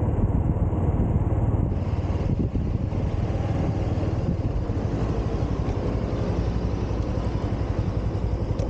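Honda Super Cub 110's small single-cylinder four-stroke engine running at low speed as the scooter slows. Its even exhaust pulses grow more distinct near the end.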